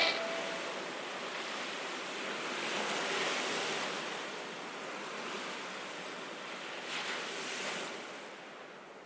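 Soft rushing noise like wind or surf, with no pitch or beat, swelling about three seconds in and again around seven seconds, then fading out.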